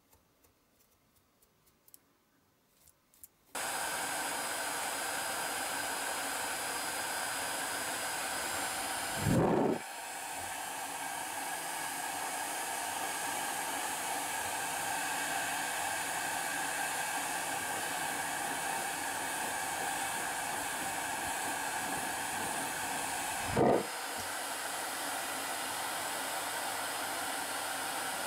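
A few faint handling clicks, then an electric heat gun is switched on about three and a half seconds in and blows with a steady hiss. Twice a brief, louder bump rises over it.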